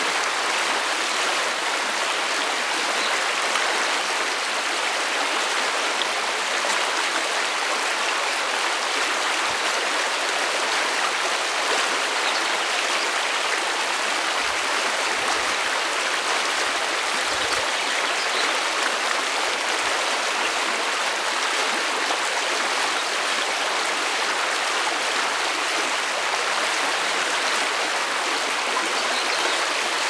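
Shallow stream running fast over stones and gravel, a steady, even rushing and babbling of water.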